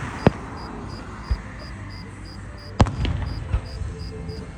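Fireworks bursting, with a sharp bang just after the start and a louder bang about three seconds in, followed by a low rumble. Under them crickets chirp steadily, about three chirps a second.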